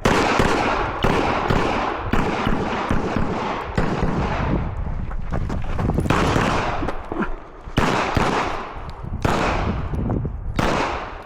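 Glock 34 9mm pistol fired in a long string of rapid shots, several a second, in quick groups with short pauses between them.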